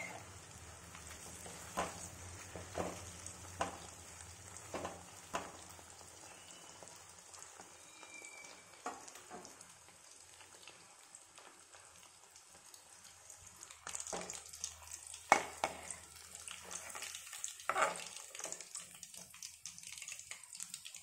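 Batter-coated chicken pieces deep-frying in hot oil in a metal kadai on medium flame, crisping up: a steady, fairly quiet sizzle. Scattered sharp clicks of the slotted metal spoon against the pan come through, several in the first few seconds and a busier run from about two-thirds of the way in as the pieces are stirred and lifted out.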